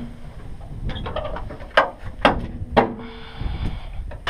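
The steel hood of a 1998 Jeep Wrangler TJ being unlatched and raised by hand: a few sharp clicks and knocks from the hood catch and panel, then a short scraping squeak as the hood goes up.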